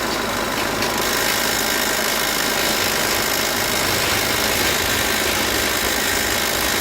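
Peugeot 5008's 2.0 HDi diesel engine idling steadily.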